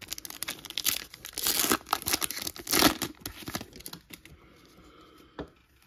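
A Topps Chrome card pack's wrapper being torn open and crinkled, a dense crackling with many sharp rips for about four seconds. It then drops to quieter handling with one click near the end.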